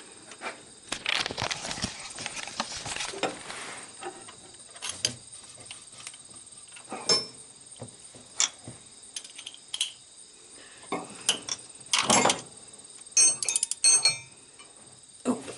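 Metal hand tools clinking and scraping as a socket and ratchet are fitted and worked on a spark plug, ending in a quick run of ratchet clicks.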